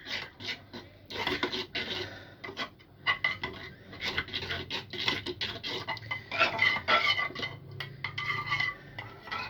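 Spoon stirring a mixture of yogurt and cornstarch in a pan, with quick repeated scrapes and clinks against the pan.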